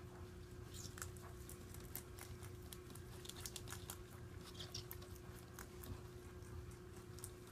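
Holland Lop rabbit chewing leafy greens: faint, quick, irregular crunching clicks, starting about a second in.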